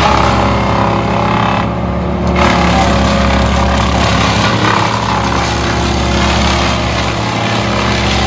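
Trailer-mounted wood chipper running steadily at working speed while cut tree branches are fed into its chute and chipped.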